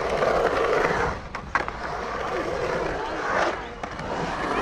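Skateboard wheels rolling on the concrete of a skate bowl, the rolling noise swelling and fading as the rider carves up and down the walls. A few sharp clacks come about a second and a half in and again later.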